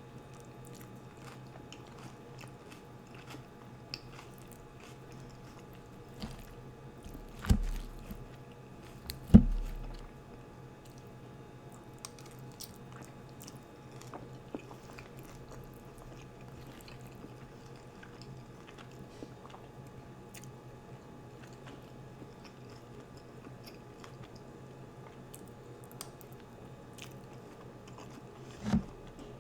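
A person chewing food close to the microphone, with scattered soft crunches and small wet mouth clicks. Three loud low thuds stand out: two about seven and nine seconds in, and one near the end.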